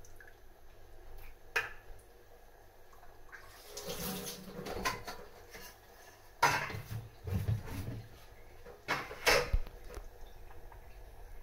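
Tamarind water splashing as it is squeezed and poured into a metal pot of vegetables, followed by several sharp clanks of metal pots and utensils.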